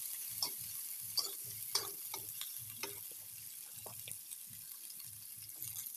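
Chopped sawi stems sizzling as they stir-fry in a wok, with a metal spatula scraping and clicking against the pan a couple of times a second.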